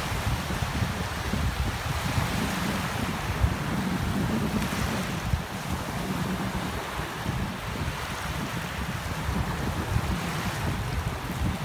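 Small surf washing up on a sandy beach, the waves breaking and running up the shore in a steady wash, with wind buffeting the microphone in a low, fluttering rumble.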